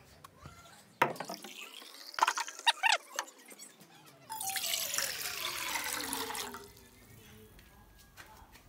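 Clinks and knocks as a stainless steel pot is handled, then about two seconds of water pouring into it.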